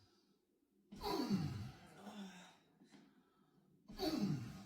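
Two drawn-out sighing groans from a patient with acute lower back pain, each falling in pitch: one about a second in, the other near the end.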